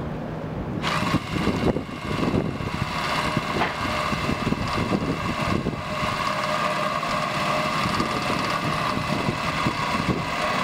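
Electric drill driving a winch-type lift, running at a steady pitch under load as it hoists a heavy boxed air-conditioning unit. The whine starts about a second in.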